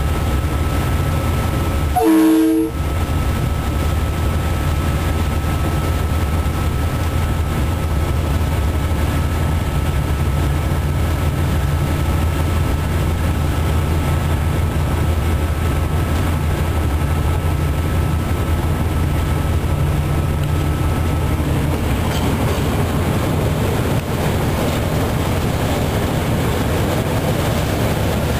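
Cab interior of a DXC diesel-electric locomotive under way with a loaded coal train: the GE V12 diesel engine's steady low drone with wheel and rail noise. A short horn blast sounds about two seconds in.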